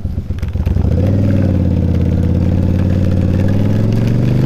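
Yamaha V-Star 1100 Classic's air-cooled V-twin engine running down the road. About a second in, its note comes up louder and holds a steady drone.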